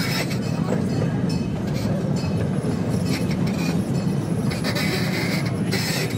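Small tourist train's open passenger car rolling along the track: a steady low rumble of wheels on rails, with a brief higher-pitched metallic sound near the end.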